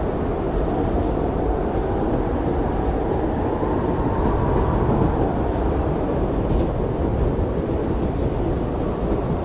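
Blizzard wind blowing steadily, a deep rushing howl that swells and eases slowly in pitch.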